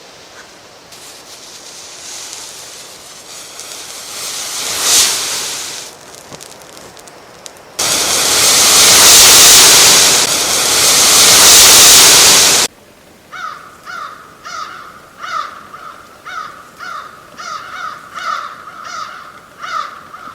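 A swelling rush of noise peaking about five seconds in, then a loud, even roar of noise for about five seconds that cuts off suddenly, followed by an animal's short, harsh calls repeated about twice a second.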